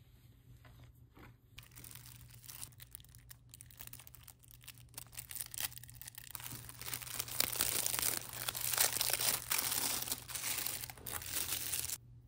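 Crinkling and rustling from something being handled, growing louder over several seconds and then cutting off abruptly near the end.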